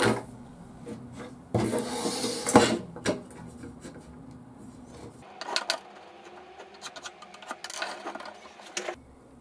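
A coil of jute rope thumps down onto wooden slats, followed by a loud stretch of rubbing and scraping on the boards. Later come light clicks, taps and scrapes as a steel ruler and a square are laid on pine boards and shifted about for marking.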